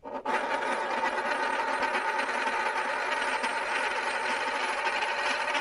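Metal Beyblade Burst Dynamite Battle disc spinning on its rim on a wooden table, a steady whirring rattle like a spun coin, starting a moment in. It shows the disc's long spin-out, the 'life after death' it is built for.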